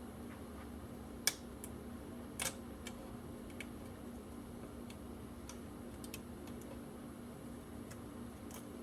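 A few sharp small clicks and light ticks of metal and plastic repair tools on an iPhone's internal parts as the lightning port flex cable is pried free, two louder clicks about a second and two and a half seconds in, over a faint steady hum.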